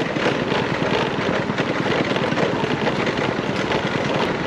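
Wind buffeting the microphone on a moving scooter: an even, dense crackling rush, with the scooter's running noise underneath.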